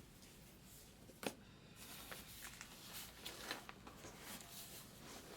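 Faint handling noise: a sharp click about a second in, then a run of small clicks and paper-like rustles.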